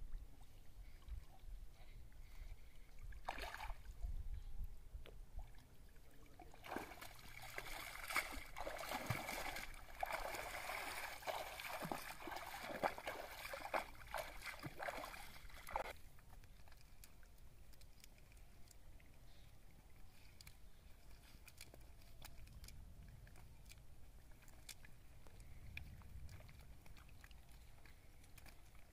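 Shallow water splashing and sloshing around wading feet and a trailed wet cast net, busy with sharp crackles for about nine seconds from about a quarter of the way in. It then dies away to faint scattered ticks and rustles.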